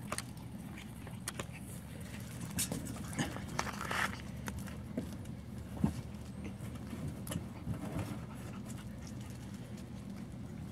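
Puppies drinking from a steel water bowl and scuffling on gravel: scattered small clicks, laps and splashes, over a steady low hum.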